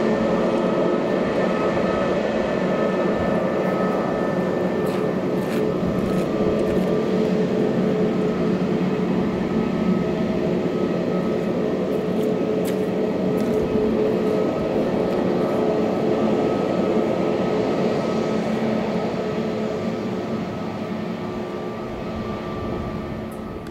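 Airbus A320neo jet engines running, a steady loud noise with several steady whining tones through it, fading away over the last few seconds.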